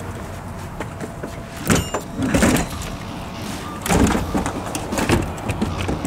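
Clunks and rattles of a folded Sit N Stand stroller's plastic-and-metal frame and wheels being shoved into a car's trunk: a few separate knocks about a second apart over a steady low rumble.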